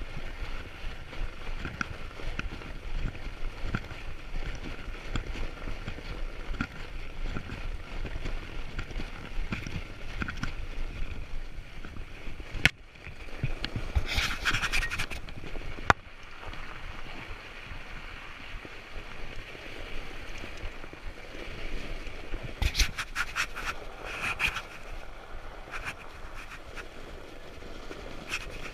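Fat-tyre bike rolling over packed snow: steady tyre and wind noise on the bike-mounted camera's microphone, with a few louder stretches of scraping and rattle and two sharp clicks about halfway through.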